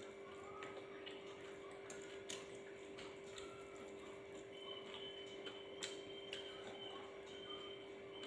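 Quiet sounds of eating rice and side dishes by hand: scattered soft clicks and small crunches, with a few sharper ticks about two, three and six seconds in, over a steady low hum.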